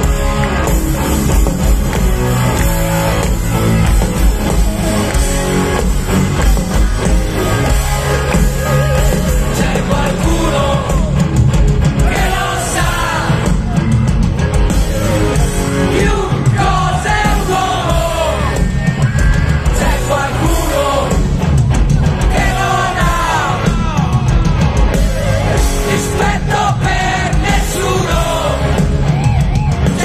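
Rock band playing live through a big concert sound system, with bass, guitars and drums; a lead vocal comes in about ten seconds in.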